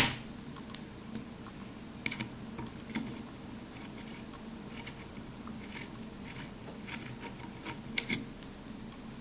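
Small scattered clicks and ticks of an Allen wrench being worked in a rib screw of a Browning Buck Mark .22 pistol, with light handling of the gun. A sharp click at the start and a quick pair of clicks near the end.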